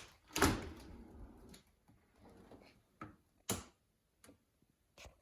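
A series of sharp clicks and knocks, the loudest about half a second in, then several smaller ones a second or so apart, typical of a Bosch Serie 4 dishwasher's door and latch being handled.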